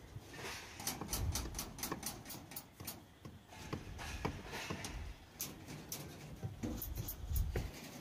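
Irregular metallic clicks and ticks of steel reinforcement bars being tied at their crossings with binding wire, several a second, over a low rumble.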